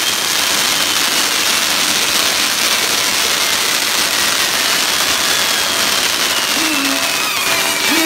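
Fireworks castle burning: a loud, continuous hiss of spark fountains and spinning fire wheels, with a thin whistle gliding slowly up and down in pitch.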